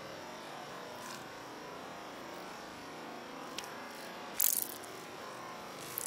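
Steady outdoor background noise, with a faint click about three and a half seconds in and a short, sharp, hissy burst about a second later, as house sparrows hop and peck right at the microphone.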